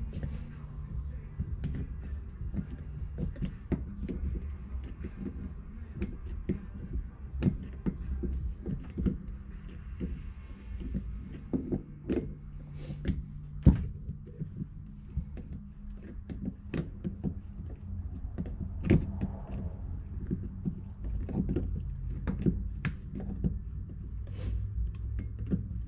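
Hand tools and small metal carburetor parts clicking and clunking as the carburetor is taken apart, with one louder knock about halfway through. A steady low hum runs underneath.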